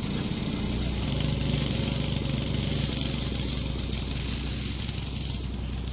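Small go-kart engines running across a lawn, a steady drone that rises and falls slightly in pitch, under a constant high hiss.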